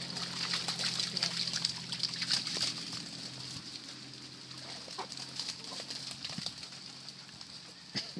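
Water splashing and sloshing as dogs wade and run through a flooded, muddy field, busiest in the first few seconds and thinning out after.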